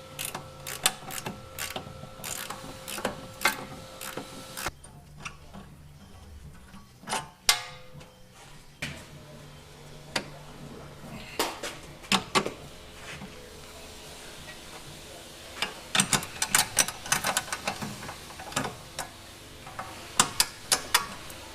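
Hand ratchet clicking in short, irregular runs as bolts are undone on a car's front strut, with sharp metal tool clinks.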